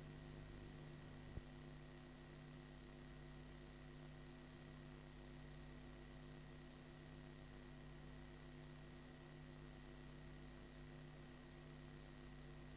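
Near silence: a faint steady electrical hum and hiss from blank videotape playback, with one faint click about a second and a half in.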